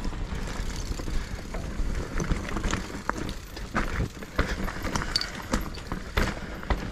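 Mountain bike riding down a rough, rocky trail: irregular knocks, clicks and rattles from the tyres and bike over stones, over a steady low rumble.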